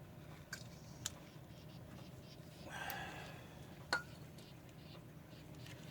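Faint clicks and clinks of metal brake parts and tools being handled, with a brief rustling noise about three seconds in.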